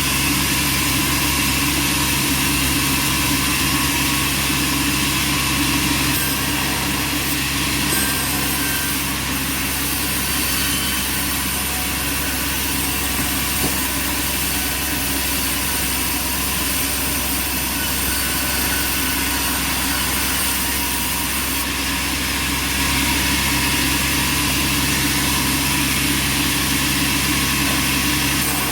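Bandsaw sawmill running steadily: a continuous machine hum with a steady whine over it.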